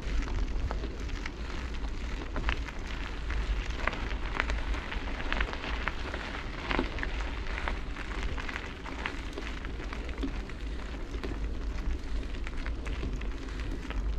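Wind buffeting the microphone as a steady low rumble, with dense irregular crackling and clicking over it.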